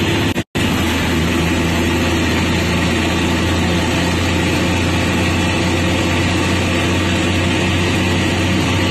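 Heavy diesel truck engines running steadily at low revs, a deep even drone heard from inside a truck cab. The sound cuts out completely for a moment about half a second in.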